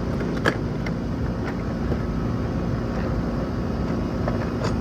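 Old air-conditioner condensing unit running steadily with its piston-type compressor on, now starting since the failed capacitor was replaced. Two sharp clicks sound over it, about half a second in and near the end.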